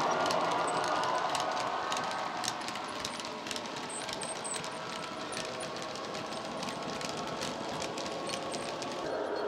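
OO gauge model goods wagons rolling along the track, their wheels clicking irregularly over rail joints, while the Accurascale Class 66's diesel engine sound from its DCC sound decoder and speaker fades away during the first couple of seconds.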